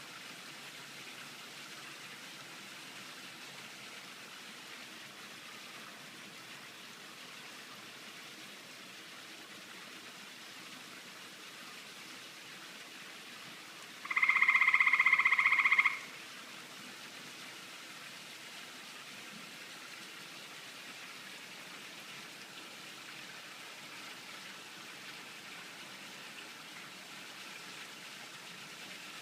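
A steady hiss like rain, broken about halfway by a loud, buzzing trill of even pitch lasting about two seconds.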